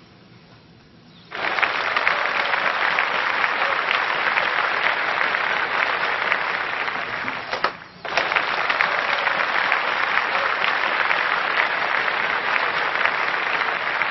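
Applause from many clapping hands, starting abruptly about a second in, breaking off for a moment about eight seconds in and then resuming.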